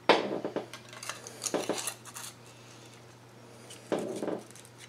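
Mossberg Blaze .22 rifle parts clicking and clinking as the rifle is reassembled by hand. There is a sharp click at the start, a few more about a second and a half in, and another short clatter about four seconds in.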